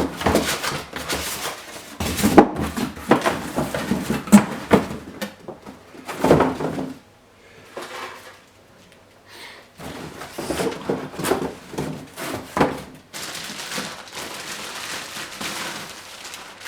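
Cardboard box and packaging being handled during an unboxing: repeated knocks, bumps and scrapes, with a stretch of steady rustling near the end.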